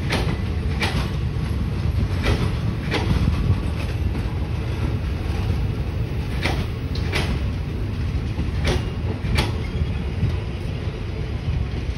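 Railway passenger coaches rolling slowly past, their wheels clicking over a rail joint in pairs (one click for each axle of a bogie) over a steady low rumble.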